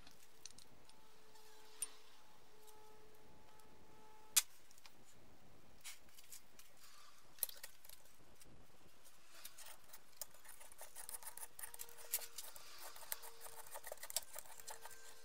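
Small metallic clicks and taps from fitting a piston and a threaded piston press tool into a brake caliper, with one sharp click about four seconds in. From about nine seconds there is a quick, uneven run of ticking as the tool is worked to press the piston into its bore.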